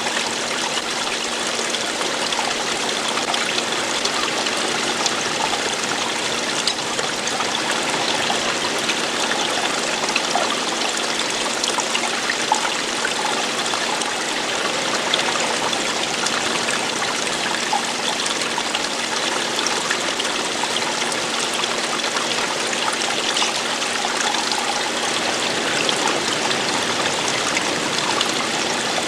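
Running water flowing and splashing steadily, a continuous rush with many small splashes and trickles.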